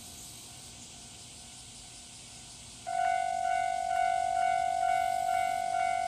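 Japanese level-crossing alarm starting up about three seconds in: a steady ringing 'kan-kan' with about two strikes a second over a sustained tone, warning of an approaching train.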